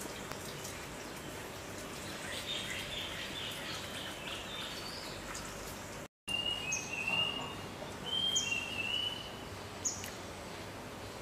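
Small birds calling over a steady background hiss, with short high chirps and quick falling chips repeating about every second and a half in the second half. The sound drops out briefly about six seconds in.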